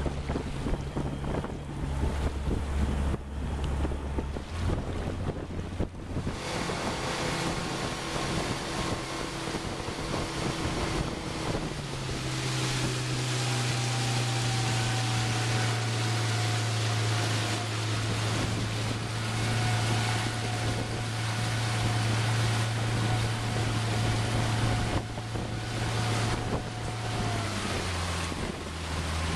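Small boat's outboard motor running, its note stepping up as it speeds up about five seconds in and again about twelve seconds in, then dropping near the end. Water rushes along the hull and wind hits the microphone while it is under way.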